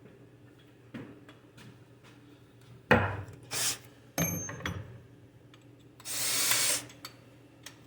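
Tools being handled on a workbench: a sharp knock about three seconds in, then a metallic clatter with a thin ringing note, and a brief rasping noise lasting under a second near the end.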